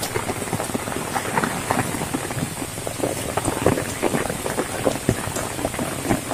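Heavy rain pattering: a dense, irregular crackle of drops hitting surfaces.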